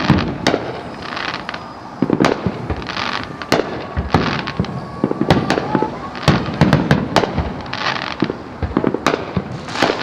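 Fireworks display: a rapid run of aerial shell bursts, booms and sharp cracks with crackling between them, and a faint rising whistle about halfway through.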